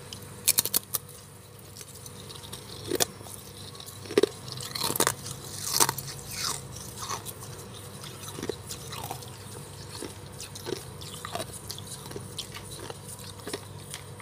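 Chunks of freezer frost ice being bitten and chewed, crunching. A quick run of sharp cracks comes about half a second in, a few louder crunches follow in the middle, then softer chewing crunches.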